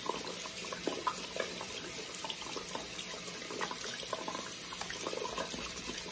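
Bathroom faucet running a steady stream into the sink, with small scratchy ticks as a makeup brush is swirled and scrubbed in a wire mesh strainer under the water.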